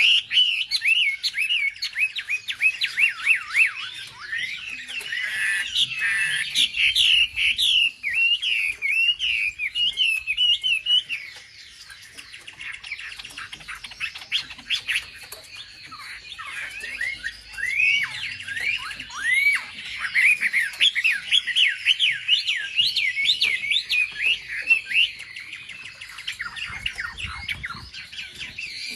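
Wambi songbird singing a rapid, busy run of high chirps, short whistled glides and squawky notes. The song thins out for a few seconds in the middle, then picks up again just as densely.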